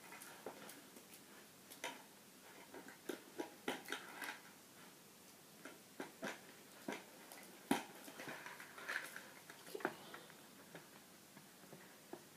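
Faint, irregular clicks, taps and rustling of a lampshade and lamp parts being handled while a hook is fitted and a piece slid into place, with one sharper knock a little under eight seconds in.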